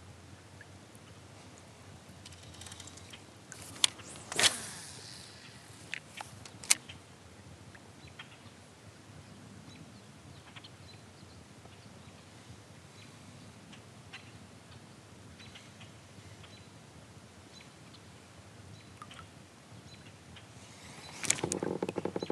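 Quiet lake ambience from a fishing kayak, with a few sharp clicks and knocks from the rod, reel and hull being handled, the loudest about four seconds in and another near seven seconds, then a louder rustling near the end.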